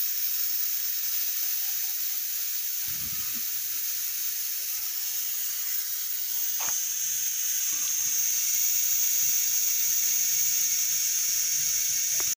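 Pressurised nitrogen hissing out of a refrigerator's sealed refrigerant circuit through an opened manifold gauge valve, as the nitrogen charge used for leak testing is vented. A steady hiss that grows a little louder and sharper about halfway through.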